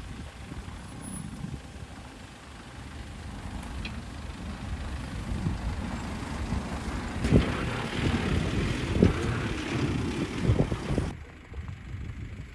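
A vehicle on the move: a low rumble with road noise that grows louder, and several sharp thumps in the second half.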